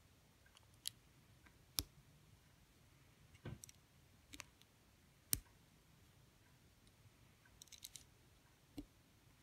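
Plastic LEGO bricks clicking as they are handled and pressed together: scattered sharp clicks, with a quick run of small ticks about eight seconds in.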